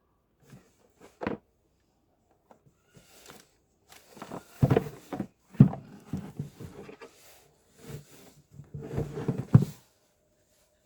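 Router box and packaging being handled: a run of cardboard scrapes and rustles with several sharp knocks, loudest around the middle and again near the end.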